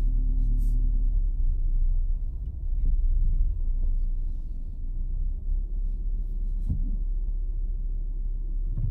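Low, steady rumble of a car moving slowly, engine and road noise heard from inside the cabin.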